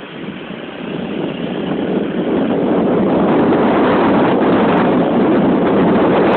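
Loud, steady noise of a vehicle under way: engine and exhaust mixed with wind on the microphone, building over the first three seconds and then holding steady.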